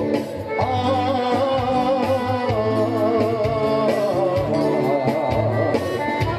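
Folk dance music from a band: a wavering lead melody over a steady bass line and a regular drum beat.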